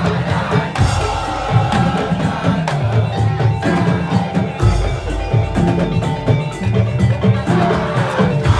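Madurese tong-tong ensemble playing: rapid wooden slit-drum and drum percussion over a moving low melodic line.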